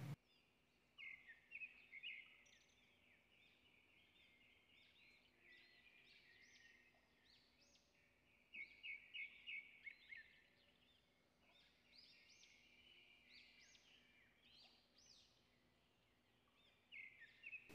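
Near silence, with faint bird chirping in short quick clusters: about a second in, again around eight to ten seconds in, and near the end.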